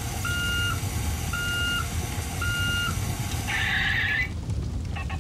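Electronic reversing beeps from a Road Rippers toy tow truck's sound module: three even beeps about a second apart over a low rumble, then a short hiss about three and a half seconds in.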